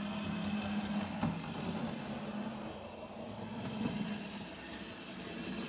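A 1966 Fleischmann 1306 HO shunter's small electric motor running, with its wheels rolling on the track: a steady low hum that weakens after about a second. It is running well again after a clean and service.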